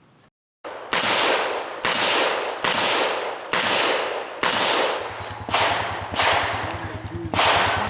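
Revolver fired in a steady string of about eight shots, roughly one a second, each shot echoing, with faint high rings after some of them. A low buzz joins about five seconds in.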